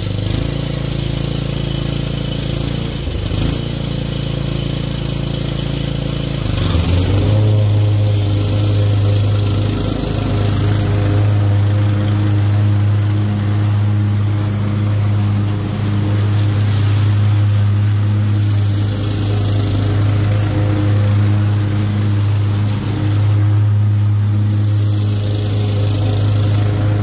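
Cub Cadet XT1 riding lawn mower's engine running steadily as it drives over the lawn, picking up wet leaves into its bagger. Its pitch drops and settles into a lower steady hum about seven seconds in.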